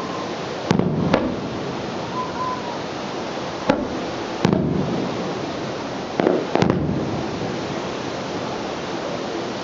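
Fireworks shells bursting overhead: six sharp bangs, mostly in pairs, each followed by a brief low rumble, over a steady rushing background noise.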